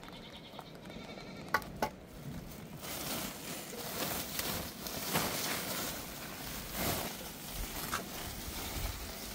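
Flock animals bleating: a few short bleats in the first second or so. From about three seconds in, a steady rustling noise, like wind or movement, runs under scattered clicks.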